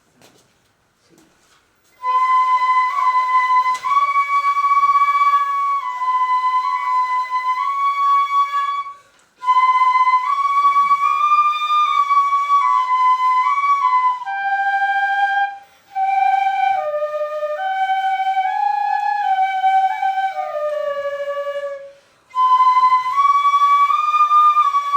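Shinobue, the Japanese bamboo transverse flute, playing a slow melody. It comes in about two seconds in and runs in four phrases, with short breath pauses between them.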